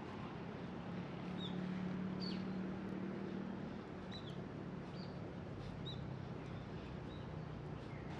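A small bird giving short, high chirps, one roughly every second, over a steady low hum like distant traffic.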